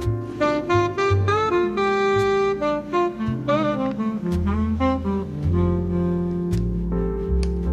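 Background jazz music: a saxophone plays a melody with bent, wavering notes over bass notes.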